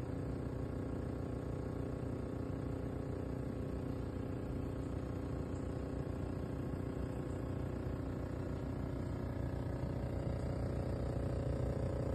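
Midea MAW08HV1CWT window air conditioner running with a steady mechanical hum, one tone in it growing slightly stronger near the end.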